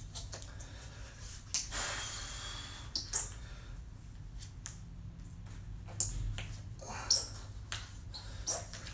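Voodoo floss rubber compression band being stretched and wrapped tightly around the upper arm and shoulder: about five sharp snaps and slaps of the rubber against skin, and a longer hiss of the band sliding about two seconds in.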